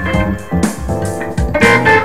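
A 1972 Fender Telecaster played through a Fuchs ODS 50 valve amplifier, improvising a blues lead line of single picked notes. The line quickens into a fast run from about one and a half seconds in.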